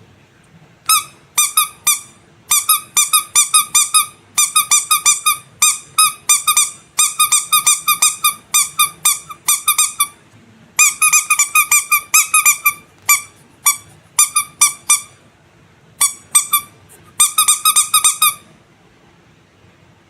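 Rubber squeaky animal toy squeezed over and over, giving quick runs of short, high squeaks all at the same pitch, with a few brief pauses, stopping near the end.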